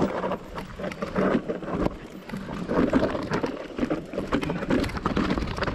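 Electric mountain bike being ridden over a rough trail: an irregular run of rattles, knocks and tyre noise on dirt and stones.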